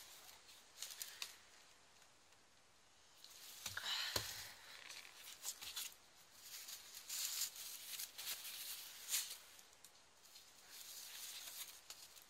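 Plastic packaging wrap and paper rustling and crinkling in short, irregular bursts as they are handled and pulled back off a wicker hamper, with a soft knock about four seconds in.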